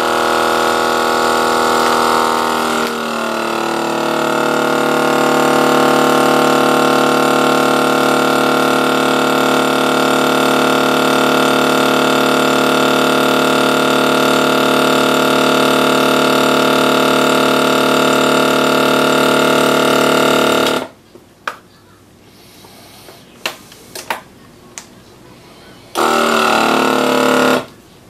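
KitchenBoss vacuum sealer's pump running with a steady drone whose pitch shifts a few seconds in. It stops suddenly after about 21 seconds, then come a few small clicks and a short second run near the end. The bag did not draw down properly on this pull, which the owner puts down to the bag probably being folded at one spot and not properly closed.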